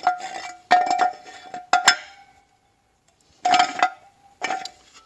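Metal transmission parts clinking together as they are handled and fitted, about five sharp clinks, each leaving a short ringing tone.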